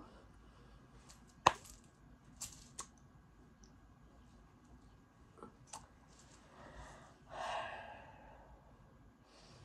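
Quiet pause with a sharp click about one and a half seconds in and a few fainter ticks after it, then a soft breathy exhale lasting about a second near the end.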